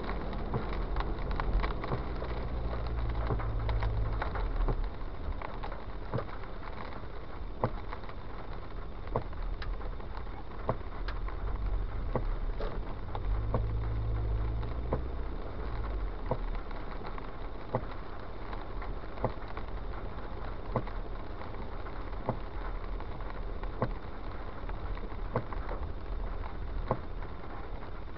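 Car driving on a wet road in the rain, heard from inside the cabin: low engine and road rumble under a steady rain-and-tyre hiss, the rumble swelling in the first few seconds and again about halfway through. From about a quarter of the way in, a sharp tick repeats about every second and a half.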